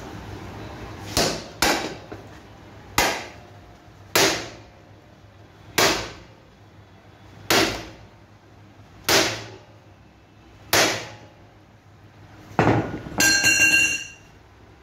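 Hammer blows on the steel motorcycle frame as the bent chassis is straightened cold. There are eight single strikes, spaced one to one and a half seconds apart, and near the end a metal clang that rings briefly.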